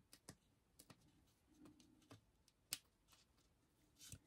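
Near silence with a few faint, scattered clicks and rustles of hands handling vinyl pieces and a small woven label, with one sharper click midway.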